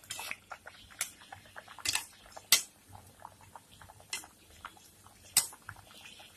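Maida dough wrapped around a steel bowl deep-frying in hot oil over low heat: a scatter of small crackles with about five louder, sharp pops spread through.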